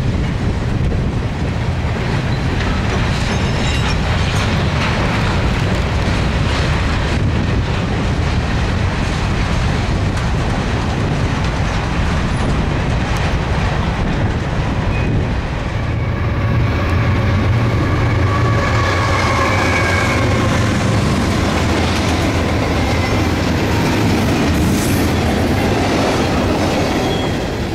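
Freight train's cars rolling past close by: a steady, loud rumble and clatter of steel wheels on the rails, with a faint wheel squeal for several seconds after the middle.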